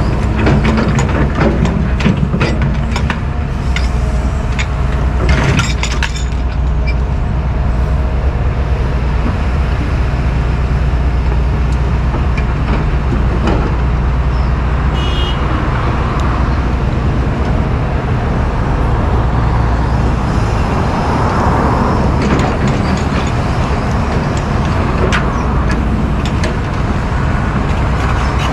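Diesel engine of a John Deere 245G track excavator running steadily as it digs and swings through concrete debris, with knocks and clatter of concrete chunks in the first few seconds. A short high tone sounds about halfway through.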